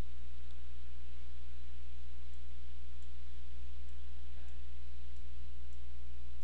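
Steady low electrical hum from the recording setup, with a few faint, sharp clicks scattered through: mouse clicks on the software's jog buttons.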